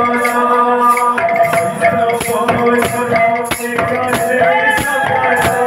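Kirtan music: a barrel drum beaten with jingling metal cymbal strokes about twice a second, over held notes, with a man's singing voice gliding in the second half.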